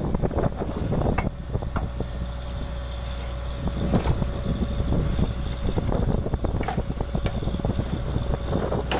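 Truck-mounted borewell drilling rig running as it drills: a steady low engine drone with a constant whine on top, broken by irregular sharp metallic knocks from the drilling.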